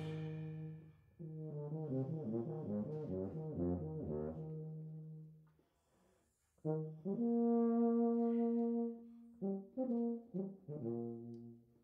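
Tuba playing an unaccompanied solo passage: a quick run of low notes, a break of about a second, then a long held note and a few short detached notes.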